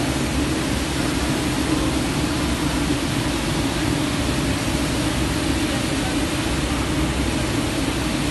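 Textile stenter machine running: its drying fans and roller drives give a steady, even rushing noise with a low hum underneath.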